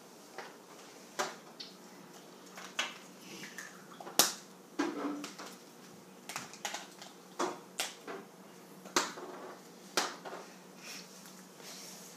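Plastic toy capsules clicking and knocking as they are handled and twisted open by hand, about a dozen sharp irregular clicks with a few softer rattles between them.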